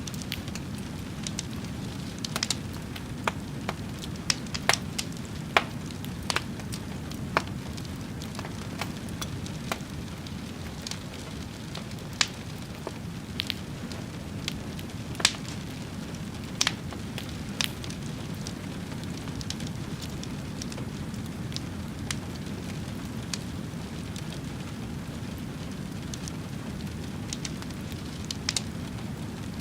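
Fire crackling: irregular sharp pops over a steady low rush. The pops come thickly in the first half and grow sparse after that.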